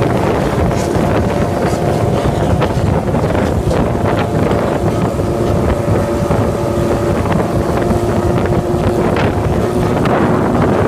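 Wind buffeting the microphone as a loud, steady rumble, with faint steady tones and scattered clicks over it.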